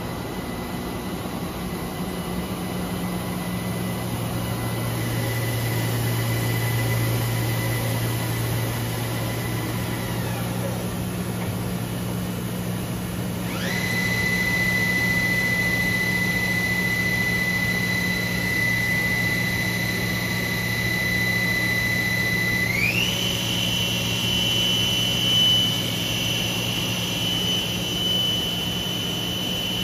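Johnford DMC-1500H vertical machining center's spindle running under power with a steady high whine. The whine winds down about ten seconds in and spins up again quickly a few seconds later. About 23 seconds in it steps up to a higher pitch as the spindle speed is raised. A steady low machine hum runs underneath.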